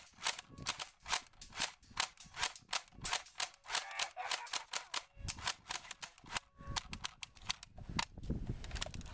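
M85 airsoft gun fired on semi-automatic in quick succession: a long run of sharp snapping shots, about three or four a second, spacing out after about five seconds.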